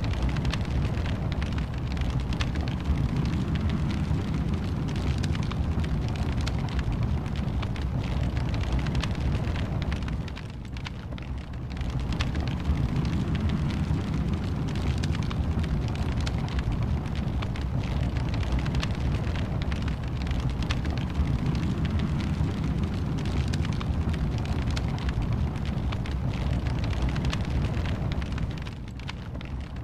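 Fire in a fireplace crackling: many small crackles over a steady low rumble. The sound drops briefly about ten seconds in and again near the end.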